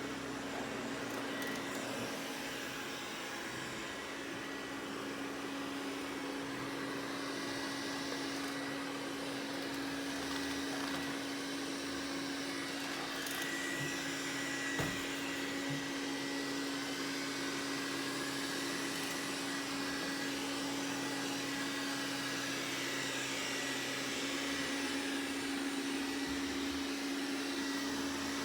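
Roborock S6 Pure robot vacuum running: a steady motor and fan hum with an even whoosh of suction. There is a single light knock about halfway through.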